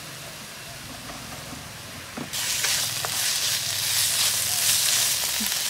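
Pieces of fish in spice paste frying in a pan and stirred with a wooden spatula. The sizzle is quiet at first, then jumps suddenly to a loud, steady sizzle a little over two seconds in, with a few short scrapes of the spatula.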